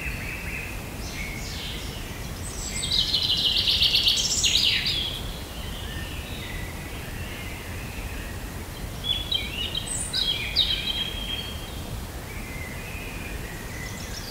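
Forest ambience of birds singing: a fast, loud trill about three to five seconds in and several short chirps around ten seconds, over a steady low background hiss.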